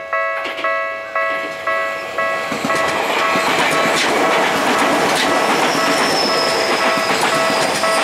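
Level-crossing warning bell ringing about twice a second. About two and a half seconds in, a Tokyu 5050-series 4000-subseries electric commuter train passes close by, its wheels clacking over the rail joints, with the bell still ringing beneath and a thin high whine slowly falling in pitch from about halfway.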